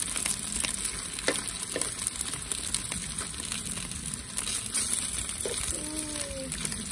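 Pork and beef sizzling steadily as they fry in oil in a pan, with a couple of clicks of metal tongs against the pan as the meat is turned.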